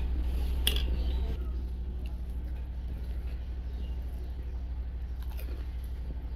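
A person biting into and chewing fuchka (crisp hollow puri shells) close to the microphone: one sharp crunch under a second in, then chewing. A steady low hum runs underneath.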